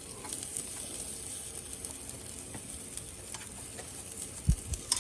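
Food frying in hot oil, a steady sizzle with small crackles, and a couple of low thumps near the end.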